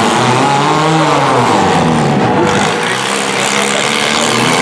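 Engines running and revving up and down, several at once, with a Cat compact track loader's diesel passing close by.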